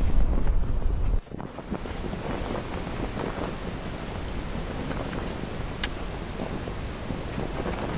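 Wind buffeting the microphone, cut off suddenly about a second in, then crickets trilling in one steady, unbroken high note over a light wind haze. A single sharp click comes near the end.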